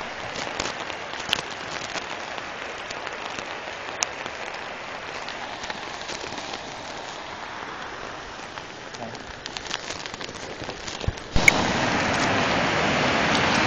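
Steady rush of muddy floodwater pouring across a road in a strong current, with a few faint clicks. It turns abruptly louder a little after eleven seconds in.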